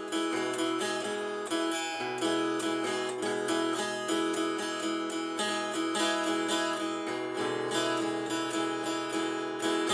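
Acoustic guitar strumming a steady, rhythmic chord accompaniment: the instrumental intro before the vocal comes in.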